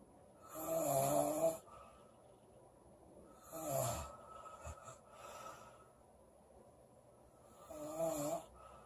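A woman snoring loudly in her sleep: three buzzing snores, each about a second long and roughly three and a half seconds apart, with quiet breathing between them. The middle snore drops in pitch as it ends.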